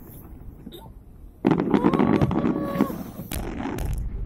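New Year's fireworks display: scattered pops, then about a second and a half in a sudden loud rush of dense crackling as a big volley of shells bursts, with a steady held tone over it for about a second. Several sharp bangs and deep booms follow near the end.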